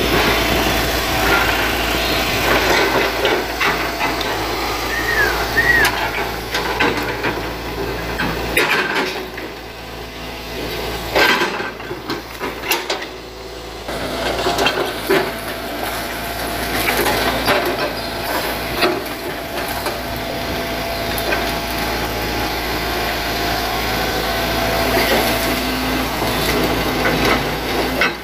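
Hitachi hydraulic excavator's diesel engine running under load as the bucket pushes against a small, firmly rooted oil palm, with repeated knocks and cracks from the trunk and the machine. The engine works hard because the palm's roots hold firm and resist being toppled.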